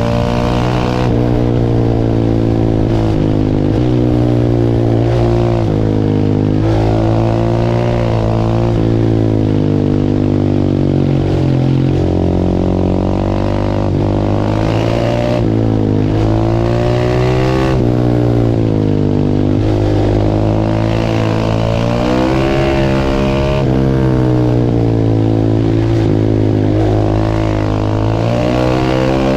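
Single-cylinder 690 supermoto engine pulling hard, its pitch climbing and dropping back many times over as the throttle is worked while riding.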